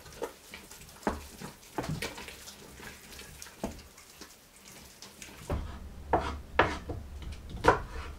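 A wooden spatula works stiff, oily bread dough in a stainless steel pot, with irregular scraping and knocks against the pot's sides. About five and a half seconds in, a low steady hum comes in and a few louder knocks follow, from handling at the stove.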